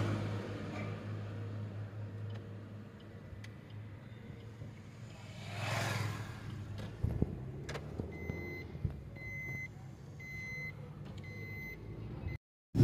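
Engine drone and road noise heard inside a moving car, with a passing vehicle swelling and fading about six seconds in. From about eight seconds on, a short, high electronic beep repeats about every 0.7 s, and the sound cuts out just before the end.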